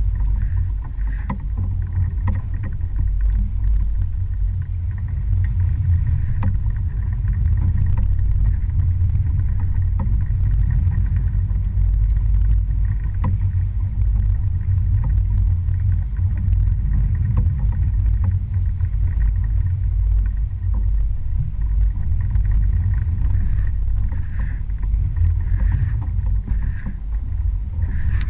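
Small fishing boat under way on choppy sea: a steady low rumble of its motor and hull running through the water.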